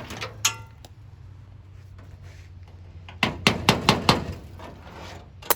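Metal work on an old truck: a single ringing metal clink, then a quick run of about five sharp knocks a couple of seconds later, and one more knock at the end.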